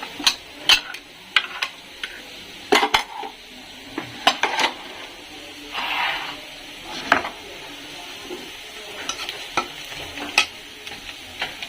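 A spoon clinking and scraping against a cooking pan while onions sizzle in hot oil, with scattered sharp knocks and a brief louder hiss about six seconds in.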